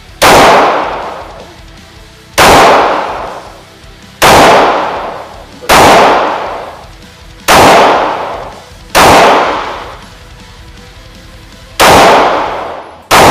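Smith & Wesson M&P semi-automatic pistol fired without a suppressor: eight single shots, mostly one and a half to two seconds apart with a longer pause before the last two. Each sharp crack is followed by an echo dying away over about a second.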